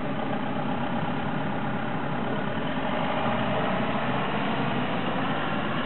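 Truck engine running steadily at low revs.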